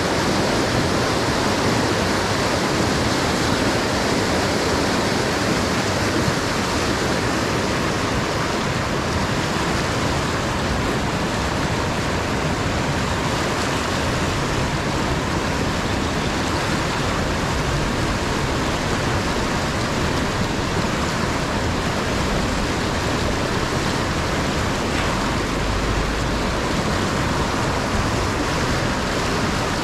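River rapids rushing steadily over and around boulders, a constant churning of white water.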